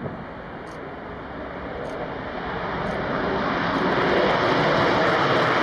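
Jet aircraft engine roar growing steadily louder as the plane approaches, then holding at full strength.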